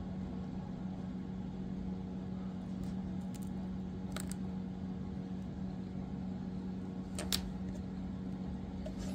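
Steady low background hum, with a few faint, sharp clicks of a hobby blade lifting the metal tabs on the base of a die-cast toy car.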